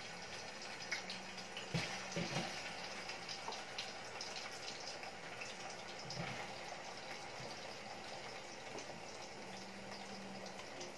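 Cubed potatoes frying in oil in a small saucepan: a steady sizzle with crackles, and a few soft knocks as more pieces are dropped in.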